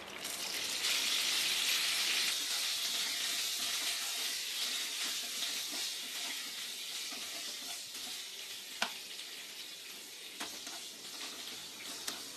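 Small slit brinjals frying in hot oil in a nonstick kadhai, a steady sizzle that eases off slowly as they are stirred with a wooden spatula. A few light knocks of the spatula against the pan, the sharpest about nine seconds in.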